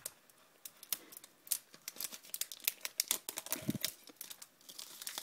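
Irregular crinkling and light clicks of foil booster-pack wrappers and trading cards being handled, starting about a second in.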